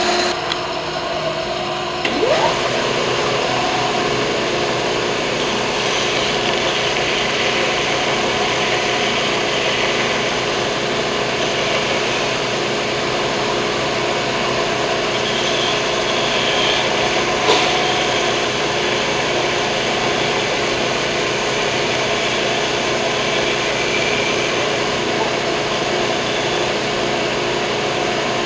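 A band saw runs for the first two seconds or so; then a belt sander runs steadily, with a small laminated hardwood cutting board's edges held against the moving belt and sanded.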